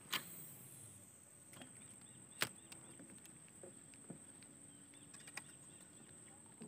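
Steady high-pitched insect drone with faint bird chirps, broken by a few sharp clicks, the loudest about two and a half seconds in.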